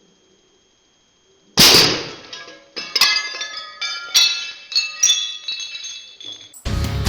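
A sharp crack about a second and a half in, then a run of ringing clinks and clatters for about five seconds, like struck glass or metal pieces. This fits an air rifle shot hitting a hard target.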